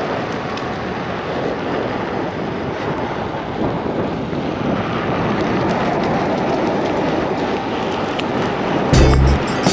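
Steady rushing wind and rolling noise on the microphone of an electric unicycle being ridden. Loud bass thumps come in near the end.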